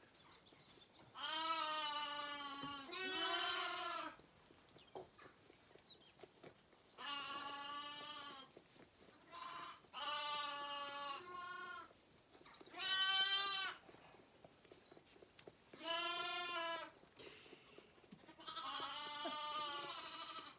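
Zwartbles lambs bleating: a series of about eight calls, most around a second long and a few seconds apart.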